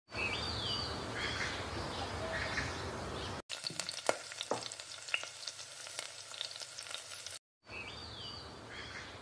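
Breadcrumb-coated potato donut frying in hot oil, sizzling with sharp crackles and pops through the middle of the clip. Before and after it, a steady hiss with a repeated high chirping figure.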